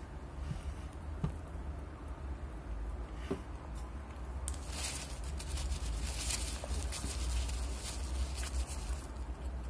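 A person chewing a mouthful of fried chicken close to the microphone, with soft wet mouth sounds and a few small clicks, then a longer crackly stretch in the second half. A steady low hum runs underneath.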